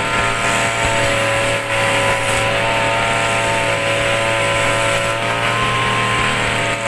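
A small engine running steadily at an even speed, a constant drone that holds its pitch.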